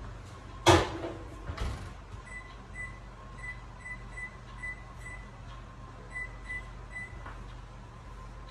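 Oven door shutting with a thud and a lighter knock after it, then about a dozen short, high beeps from the oven's keypad, some in quick pairs, as the oven is set.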